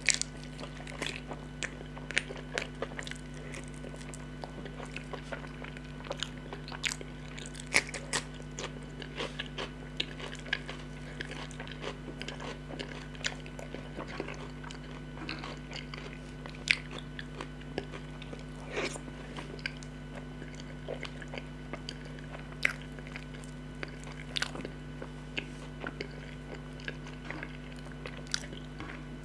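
Close-up chewing and biting of a chicken drumstick: irregular wet clicks, smacks and crunches, several a second, over a steady low hum.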